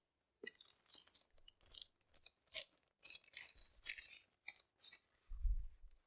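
Plastic wrapping and paper crinkling and rustling in quick, irregular bursts as items are lifted out of a cardboard box, with a dull thump about five seconds in.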